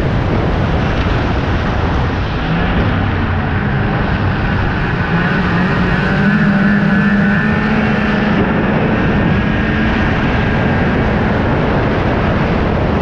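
Snowmobile engine running steadily as the sled cruises along a snow trail. The engine note rises a little and grows stronger about halfway through, then settles back.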